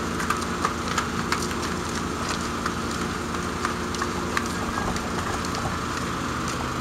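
Diesel truck engine idling steadily, with scattered light clicks over it.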